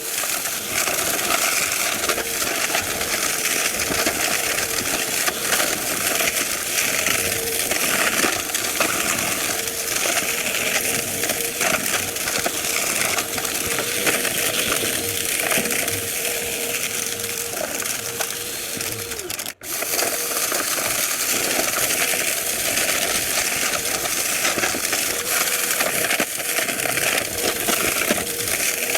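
Vacuum cleaner running with a steady motor hum while crunchy debris crackles and rattles as it is sucked up. The sound cuts out for an instant about twenty seconds in, then carries on.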